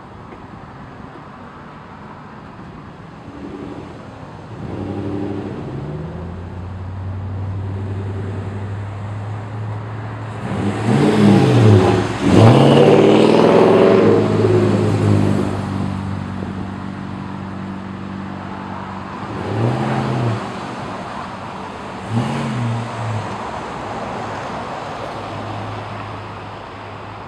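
Toyota Sequoia V8 with a Flowmaster 40 Series muffler and the resonator deleted, giving a low exhaust growl. The growl swells into a loud run of rising and falling revs about halfway through, then two shorter revs follow a couple of seconds apart.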